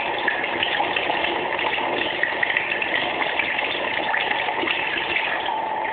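Tap water running in a steady stream and splashing onto an opened Swiss Army knife held under it, washing into the tool pivots.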